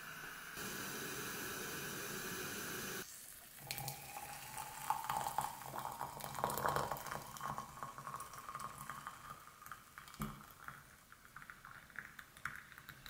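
Hot water poured from a kettle into a stoneware teapot: a steady splashing pour from about four seconds in, its tone rising slightly as the pot fills, thinning out near the end. Before it, a steady hiss for the first few seconds.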